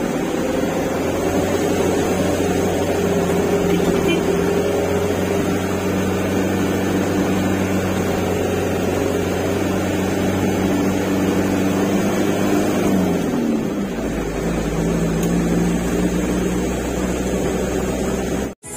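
Truck engine running steadily under way; about 13 seconds in its note drops and settles at a lower, steady pitch. The sound cuts off abruptly near the end.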